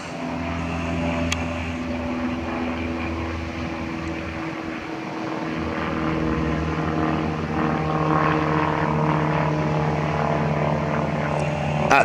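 Steady drone of an unseen engine: a low hum made of several level tones that holds its pitch and grows somewhat louder in the second half.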